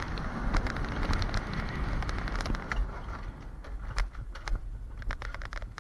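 Alpine coaster sled running on its steel tube rails: a steady rolling rumble with sharp clicks and rattles. The rumble dies down about halfway through as the sled reaches a slow-down sign, leaving mostly the clicks and rattles.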